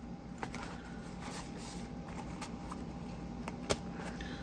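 Quiet handling noise of unboxing, with a few scattered light clicks and ticks; the sharpest comes about three and a half seconds in.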